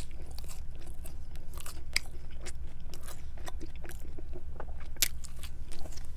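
Close-miked chewing of pizza crust: wet chewing with many small crunches, another bite of crust taken near the middle and a louder crunch about five seconds in.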